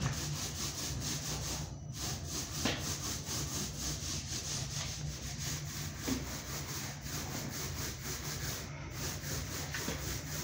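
Paint roller on an extension pole rolling up and down drywall, laying off fresh paint: a continuous rhythmic rubbing swish with each stroke.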